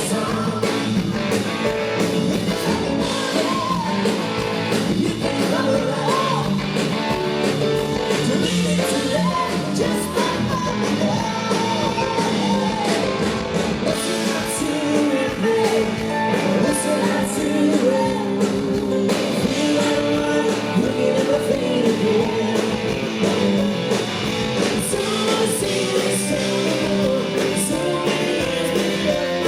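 Live rock band playing at a steady, loud level: electric guitars, bass and drums, with voices heard at times.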